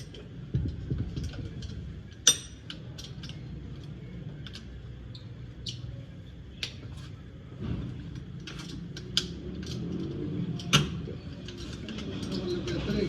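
Hand tools clicking and tapping on metal engine parts at irregular intervals over a low steady rumble, with the sharpest clicks about two seconds in and again late on.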